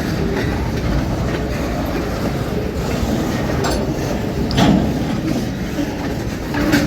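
Freight train rolling past close by: a steady rumble of steel wheels on rail with clickety-clack, and sharp knocks a little past halfway and again near the end.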